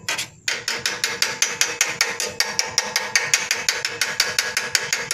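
Small hammer tapping rapidly on a thin galvanized steel sheet clamped in a manual sheet-metal bending brake, about six or seven light metallic taps a second, starting about half a second in.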